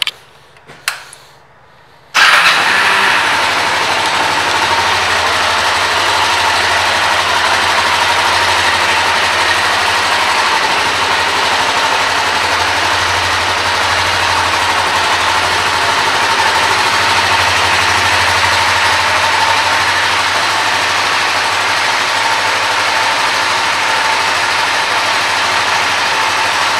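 Kawasaki Ninja 500R's 498 cc parallel-twin engine starting about two seconds in, then idling steadily.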